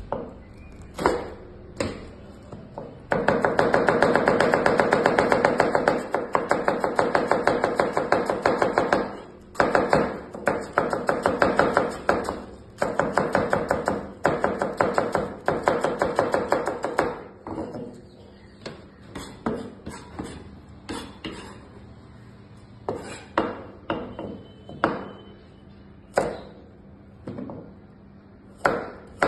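Chef's knife chopping cabbage into fine shreds on a plastic cutting board: a fast, steady run of knife strokes, broken by a couple of short pauses. In the second half the strokes come slower and separately as the knife slices a carrot into rounds.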